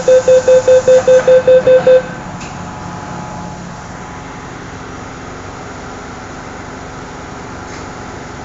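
MTR first-generation M-Train door-closing warning: a loud rapid beeping, about five beeps a second, that stops about two seconds in. A short thud follows as the doors shut, then the steady running noise of the train's interior.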